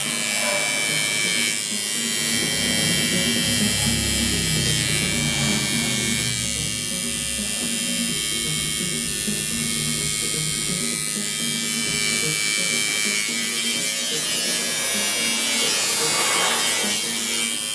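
Electric tattoo machine buzzing steadily while inking.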